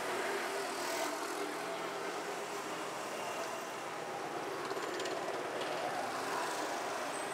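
Steady street background noise with a few faint clicks.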